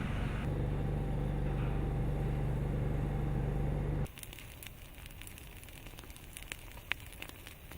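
A steady low engine-like drone that cuts off suddenly about four seconds in, followed by quieter, scattered crackles and snaps of vegetation burning at the edge of an advancing lava flow.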